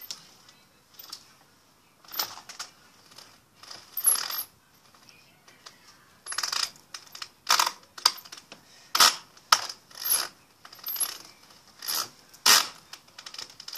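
Irregular sharp clicks and clacks of a small hard object being handled, some single and some in quick clusters, louder and more frequent in the second half.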